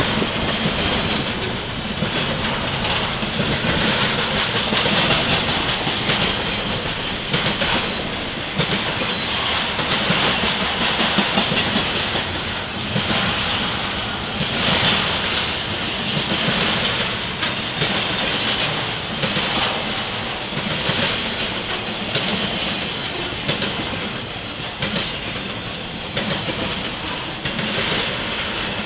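Intermodal freight train's double-stack container cars and trailer flatcars rolling past: a steady rolling noise of steel wheels on rail, with frequent clicks as wheels cross the rail joints.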